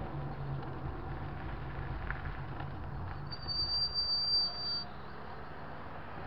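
Steady road and engine hum while rolling to a stop, with a high thin brake squeal lasting about a second and a half just past the middle.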